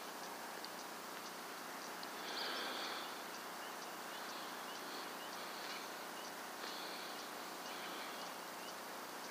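Outdoor night ambience: steady hiss with short high-pitched buzzing calls of night creatures repeating about once a second, and one louder call about two seconds in.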